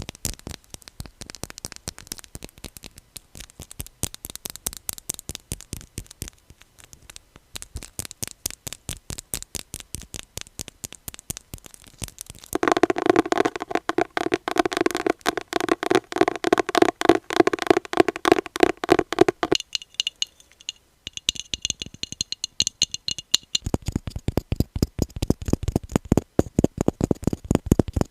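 Fast fingernail tapping on a series of different objects, changing object several times: light, dry clicks first, then taps that ring with a hollow tone, then a brief stretch of high, glassy ringing taps, then deeper, fuller taps near the end.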